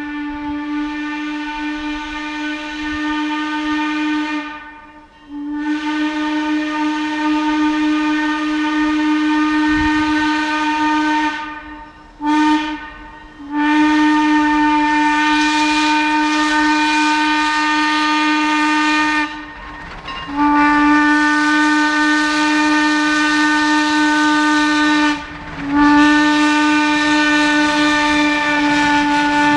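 Steam locomotive whistle blowing one steady note with steam hiss, in five long blasts of about five seconds each separated by short gaps, with one brief toot after the second blast.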